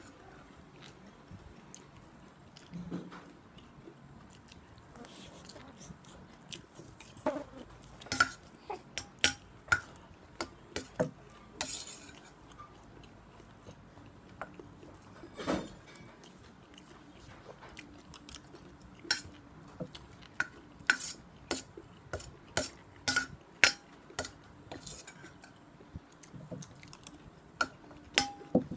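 Metal spoon clinking and scraping against a stainless steel plate as food is scooped up, in scattered, irregular sharp clicks.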